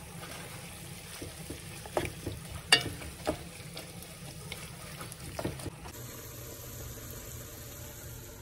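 Wooden spoon stirring raw chicken gizzards and livers with their aromatics in a pot, knocking against the pot several times in the first half, over a steady hiss.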